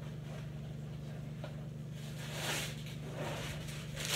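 A steady low electrical hum, with soft rustling from off to the side about halfway through and again at the very end.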